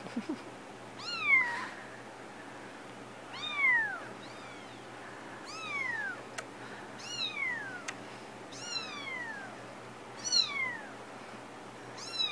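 Young kitten mewing over and over, high-pitched calls that each slide downward in pitch, about one every second and a half.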